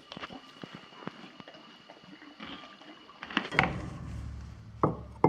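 Scattered small clicks and knocks, then, about three and a half seconds in, a rush of running water with a low rumble that lasts about a second and a half.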